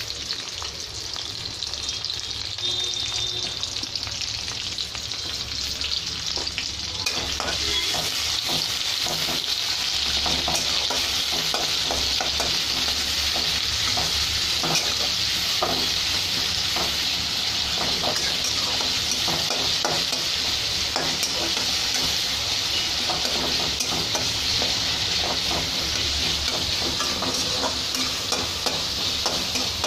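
Chopped onions and green chillies sizzling in hot oil in a metal kadai, with a steel ladle stirring and scraping against the pan in frequent short clicks. The sizzle grows louder about seven seconds in and then holds steady.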